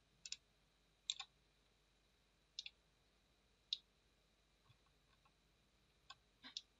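Computer mouse clicking: about six short, isolated clicks a second or so apart, some as a quick press-and-release pair, over near silence.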